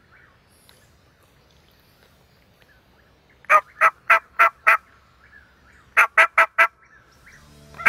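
Hunter's mouth-blown turkey call yelping loudly in two runs, five evenly spaced notes and then, after a short pause, four quicker ones.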